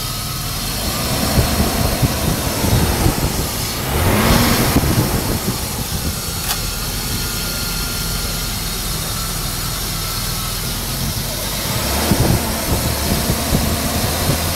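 BMW M50B20 2.0-litre inline-six running steadily at idle after a major overhaul, heard close up with the bonnet open. A short rush of noise comes about four seconds in.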